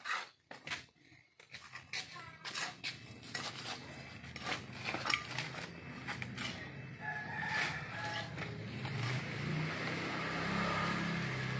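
Soil being scooped and poured into a plastic polybag: scraping, gritty clicks and plastic rustling, most busy in the first half. A rooster crows in the background.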